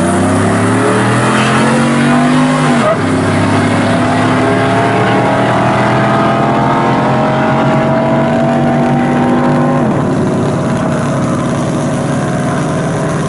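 A turbocharged pickup truck and a car racing each other at full throttle down a drag strip, engines climbing in pitch, dropping sharply on a gear change about three seconds in, then climbing steadily again until the pitch falls sharply near ten seconds in.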